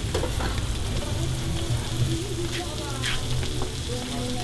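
Meats frying on a flat-top griddle, a steady sizzle over a low hum, with a few light clicks.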